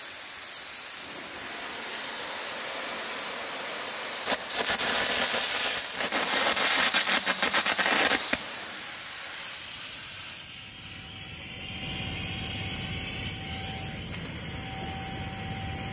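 Carbon air arc gouging: the steady hiss of the compressed-air jet and the crackle of the carbon arc as it blows molten steel out of a groove in a seized nut. It turns to a rapid fluttering crackle for a few seconds in the middle and eases off around ten seconds in.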